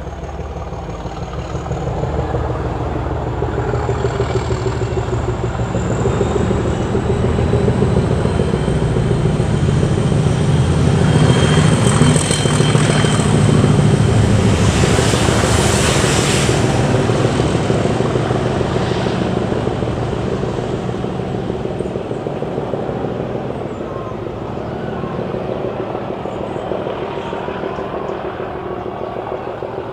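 A Rail Head Treatment Train hauled by British Rail Class 37 diesel-electric locomotives, with English Electric V12 engines, running past with its tank wagons. The engine throb grows louder to a peak about halfway, with wheel and wagon noise and a hiss at the loudest point, then fades as the train moves away.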